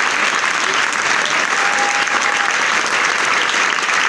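Audience and performers applauding, a dense, steady clapping.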